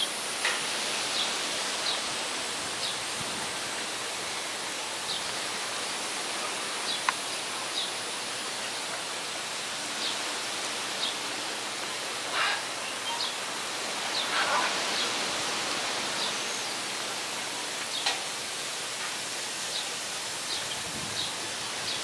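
Steady outdoor ambient hiss with short, high chirps scattered through it about once a second.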